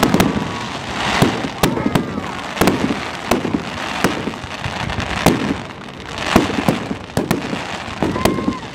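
Aerial fireworks shells bursting one after another, irregular sharp bangs with crackling, over crowd voices.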